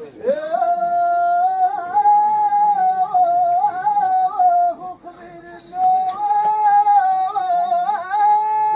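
A solo voice chanting an ornamented, wavering melodic line in the Amazigh Middle Atlas style, in two phrases with a short break about five seconds in, settling into a long held high note near the end.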